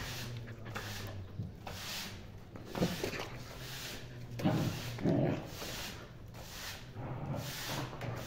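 Broom sweeping a dusty floor in repeated strokes, about one a second, with a dog giving a couple of short barks about four and a half and five seconds in.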